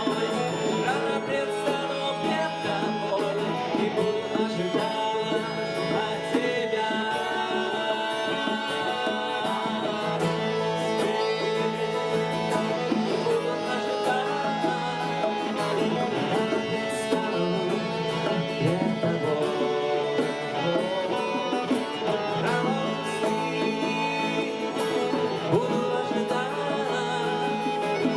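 Instrumental worship music with plucked strings, guitar-like, playing steadily without a break.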